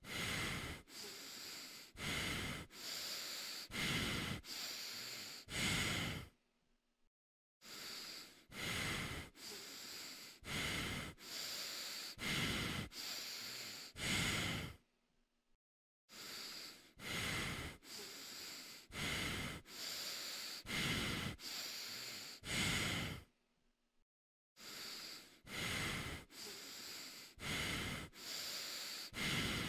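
A person breathing inside a tiger costume head, drawing in and letting out breath about once a second. The breathing comes in runs of several breaths, cut by a second or so of complete silence three times.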